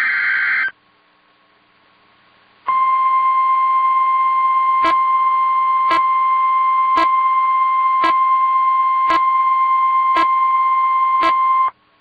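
NOAA Weather Radio emergency alert: a warbling digital SAME header burst ends, and after a short gap the 1050 Hz warning alarm tone sounds steadily for about nine seconds, with a faint click about once a second. The tone announces the special marine warning that is about to be read.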